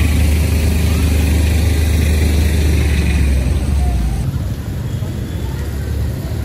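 Motor scooters and motorcycles riding past through hail-covered slush, their engines running, with a strong low rumble that eases off about four seconds in.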